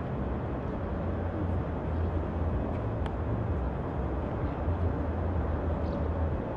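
Steady outdoor background noise: a low, fluctuating rumble under a soft hiss, with a few faint clicks.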